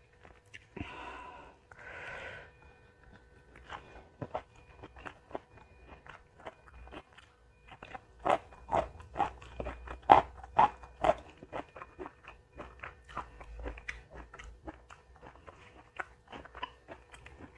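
Close-miked eating: a person biting and chewing crisp food, a rapid run of crunches that is loudest about halfway through, with softer chewing either side.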